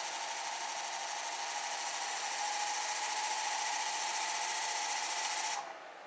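Electric seed-meter drive motors of a Graham Electric Planter running with a steady whine, growing louder about two seconds in as they speed up to match a higher ground speed. Near the end they shut off and the whine cuts out suddenly, trailing off in a short falling tone as they spin down.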